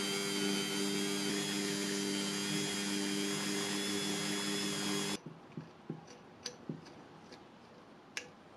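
Handheld high-speed rotary tool running steadily, its small bit grinding rust out of the threaded bore of an old steel wrench. It cuts off suddenly about five seconds in, and a few light metallic clicks follow as the part is handled.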